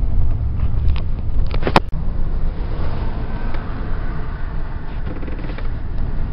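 Car engine and road noise heard from inside the moving car's cabin, a steady low rumble, with one sharp click about two seconds in.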